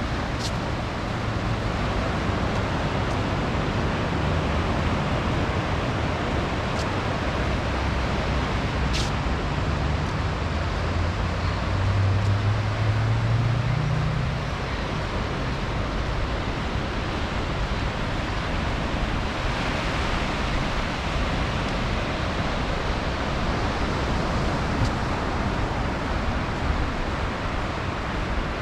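Steady wash of ocean surf on a beach. Under it a low engine hum rises in pitch and grows louder about halfway through, then fades.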